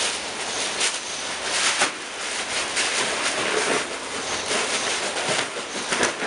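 Inflated clear plastic bags crinkling and rustling as they are handled, a dense crackle with sharper crunches now and then.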